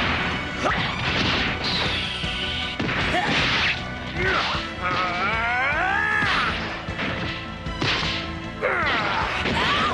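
Anime fight sound effects: repeated whooshes and hits, with a shrill pitched cry that glides up and down twice, over background music.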